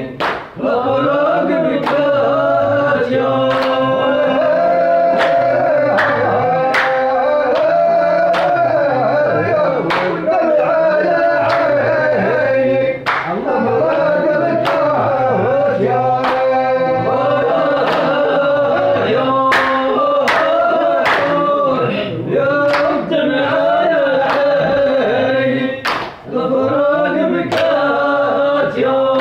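A group of men singing a traditional song together in unison, accompanied by sharp hand claps at uneven intervals.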